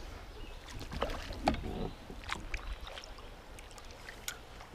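A small bass is dropped back into the river with a light splash. Then a kayak paddle clicks and knocks against the plastic sit-on-top kayak as it is taken up.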